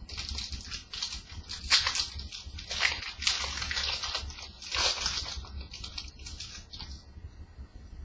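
Trading cards and pack wrappers handled by hand: irregular papery rustling and scraping, in uneven bursts that stop about seven seconds in.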